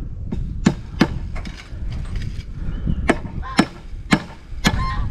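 Claw hammer driving nails into a wooden fence brace: about nine sharp, irregular strikes, with a pause partway through. The brace is hard locust wood, which makes the nailing slow going.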